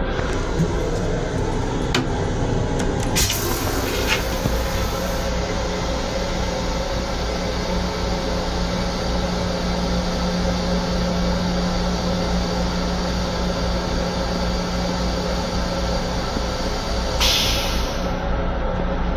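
Steady hum and rumble of an MTA Long Island Rail Road M7 electric railcar inside its small restroom, with a constant low tone. Two short bursts of hissing come in, one about three seconds in lasting around two seconds, and a shorter one near the end.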